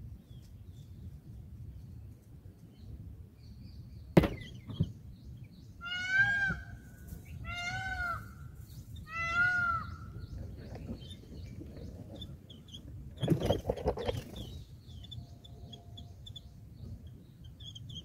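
A sharp knock about four seconds in, then three drawn-out animal calls about a second and a half apart, a short rustling burst a few seconds later, and faint high bird chirps throughout.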